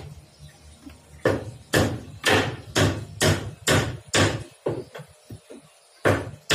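Hammer blows on a wooden roof frame, struck steadily at about two a second. There is a brief lull about five seconds in before two more blows.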